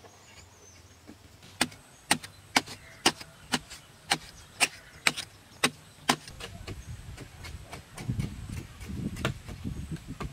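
A wooden-handled hand digging tool chopping into packed earth, about two sharp strikes a second for several seconds. After the strikes comes a lower, uneven scraping noise.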